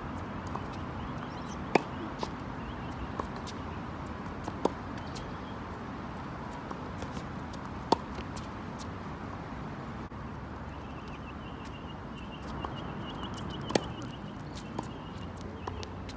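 Tennis rally on a hard court: sharp pops of the racket striking the ball, four loud ones a few seconds apart, with fainter ticks between them over a steady outdoor background.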